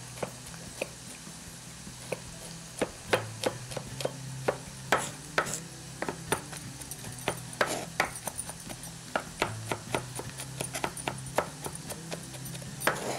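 Chef's knife rough-chopping garlic on a wooden cutting board: a run of sharp, irregular knocks, a few a second.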